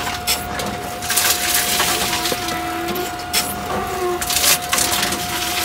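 Bottle-return (reverse vending) machine running, with a steady mechanical hum. Irregular loud crunches and clatters come from inside it as containers are handled, with short squeaks now and then.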